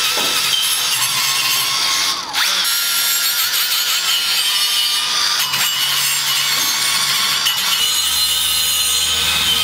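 Cordless Snap-on power tool spinning a small abrasive pad against aluminium rocker housings, a steady whir with a rubbing, grinding edge as old gasket material is scuffed off the sealing surfaces. It briefly slows and speeds up again about two seconds in, and dips once more a few seconds later.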